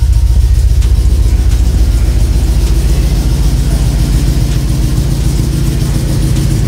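The 1958 Chevrolet Apache pickup's engine running at its first start after restoration, loud and steady, with a rapid, even low pulse.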